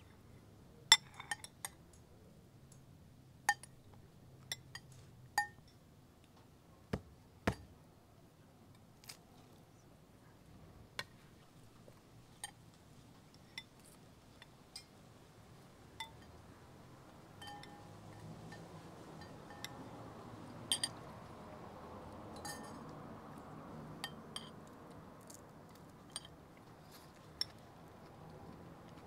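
Metal spoons clinking against glazed ceramic bowls during a meal: scattered sharp clinks every second or so, over a faint background hiss that grows a little louder past the middle.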